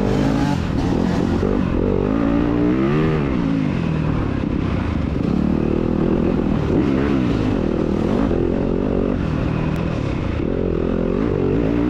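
2021 Yamaha YZ250FX's single-cylinder four-stroke engine running hard under the rider, its pitch rising and falling over and over as the throttle is opened and closed.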